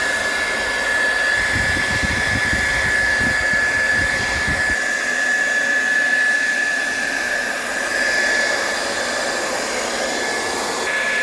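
Hair dryer running steadily: a loud, even rush of air with a constant high motor whine, and a low rumble for a few seconds in the first half. It is heating a phone's glued back cover to soften the adhesive.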